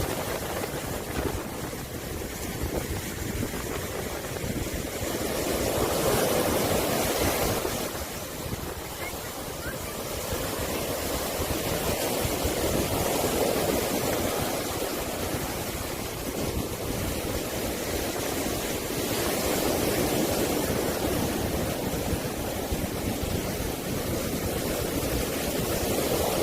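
Sea waves washing in, the rush swelling and easing every several seconds.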